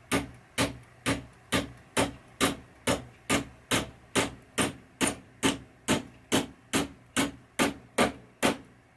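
Hammer tapping a pin punch to drive a roll pin into a Gottlieb flipper link: about twenty even, sharp metal taps, a little over two a second.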